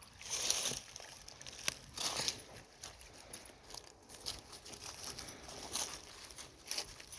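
Irregular crunching and rustling, as of dry leaves or brush being trodden or handled, coming in short bursts every second or so. A faint babbling creek runs behind it.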